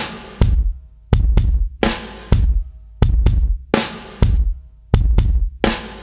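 Music for a hula dance opening with a deep drum beat: a slow repeating rhythm of single and paired strokes, roughly one every three quarters of a second, each ringing briefly.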